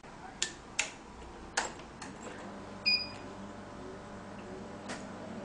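Nd:YAG tattoo-removal laser machine being switched on: a few sharp clicks from its key switch and buttons, then a short high electronic beep about three seconds in as it powers up, with another click near the end.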